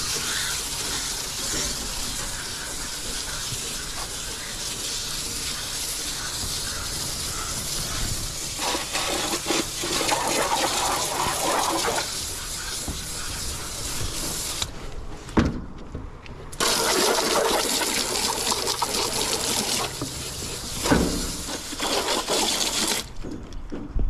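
Garden hose spraying water onto a heat pump's outdoor coil, a steady hiss that stops about fifteen seconds in, starts again a second or two later, and cuts off about a second before the end.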